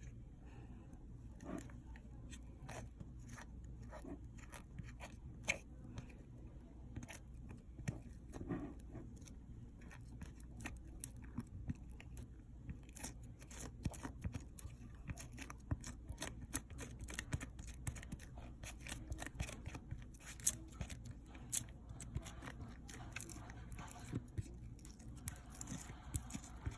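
Slime being handled and squished by hand, giving irregular small clicks and crackling pops that come thicker after about thirteen seconds.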